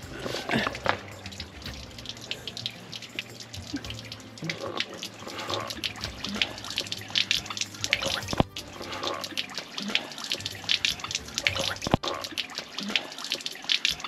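Grey water draining from a camper van's grey tank outlet, pouring in a steady stream and splashing onto the concrete pad of a dump station.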